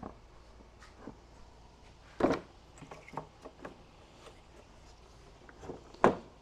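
A green plastic crate full of wood scraps being set down on a wooden flat cart: a sharp knock about two seconds in, another near the end, and lighter clicks and rattles between.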